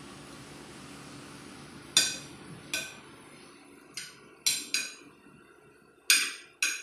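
Metal fork and spoon clinking against a ceramic dinner plate while eating rice: about seven sharp, ringing clinks, starting about two seconds in and coming irregularly, half a second to a second apart.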